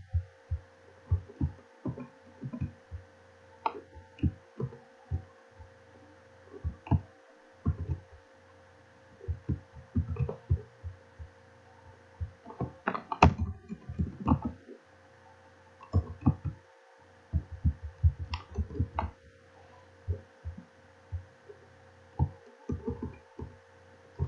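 Computer keyboard keystrokes and mouse clicks, irregular dull taps while a button caption is typed in, over a steady low electrical hum.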